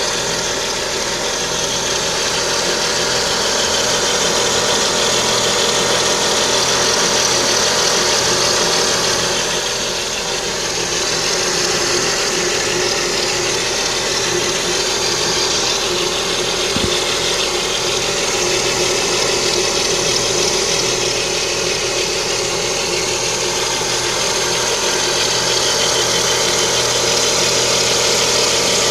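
Lada Kalina's 11194 1.4-litre 16-valve engine idling steadily, with a high whistle from the timing belt over the running engine.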